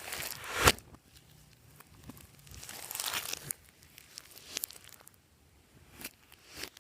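Clear slime being worked by hand, crackling and crinkling, loudest in the first second and ending in a sharp snap. A softer swell follows about three seconds in, then a few single pops.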